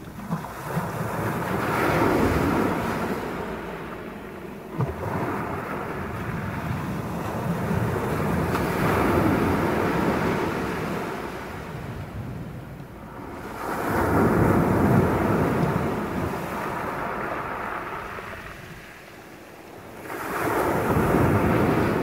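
Sea surf breaking and washing up over a pebble beach, swelling and fading in four surges that peak about two, nine, fifteen and twenty-one seconds in.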